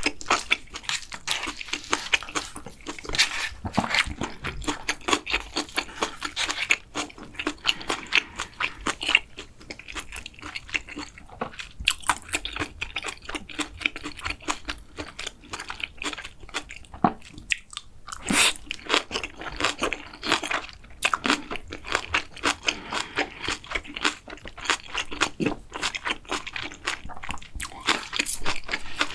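Close-miked mukbang eating sounds: a person chewing and crunching mouthfuls of food, a dense stream of short crunches and wet mouth clicks with a few sharper ones between.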